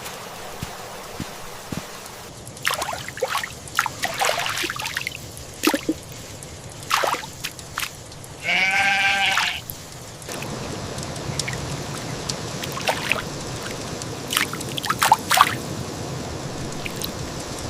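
Steady heavy rain with water trickling and splashing in short bursts, and a single animal bleat lasting about a second near the middle.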